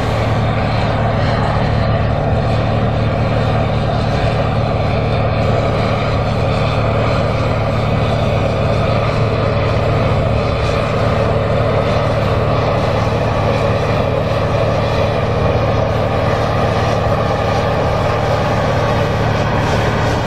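John Deere 8R tractor's diesel engine running steadily under load as it pulls a tillage implement through the ground, a constant low drone.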